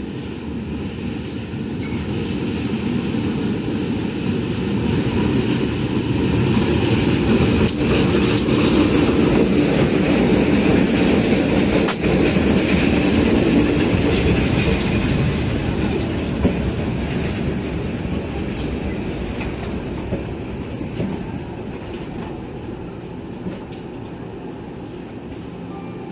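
A diesel-hauled passenger train running close past on the adjacent track. It rumbles, and its wheels clatter on the rails. The sound grows louder toward the middle, then slowly fades as the last coaches roll by.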